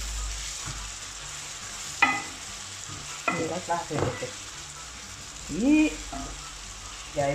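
Chicken and courgette pieces sizzling in a frying pan while a wooden spoon stirs them, with the spoon knocking once and scraping against the pan a few times.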